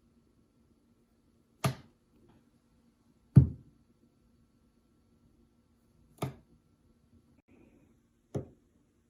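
Four sharp taps, irregularly spaced one to three seconds apart, the second the loudest, over a faint steady low hum.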